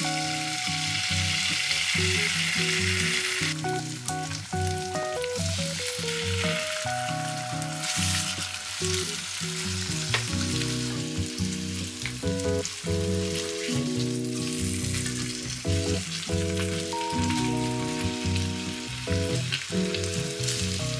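An egg sizzling in hot butter in a frying pan, loudest in the first few seconds as it goes in, with a second burst of sizzling about eight seconds in as the egg and ham fry together. Background music plays throughout.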